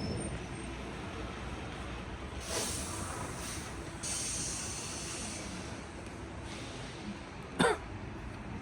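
City street ambience: a steady traffic rumble with two short spells of hissing, and near the end one brief, sharp sound that drops quickly in pitch, the loudest thing here.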